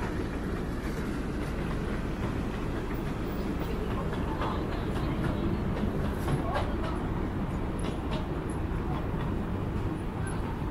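Miniature railway carriages rolling past on the track, a steady rumble of wheels on rail with a run of sharp clicks about halfway through.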